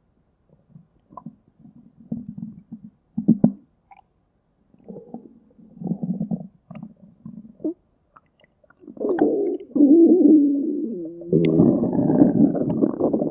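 Stomach growling: short, scattered gurgles for the first several seconds, then from about nine seconds in a louder, longer rumble with a wavering pitch.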